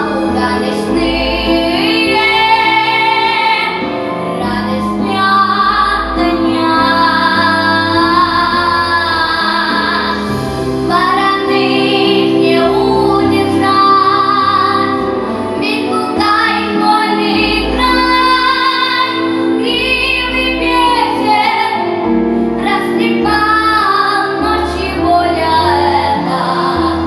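A female solo voice singing a song over instrumental accompaniment, with long held notes that waver in pitch.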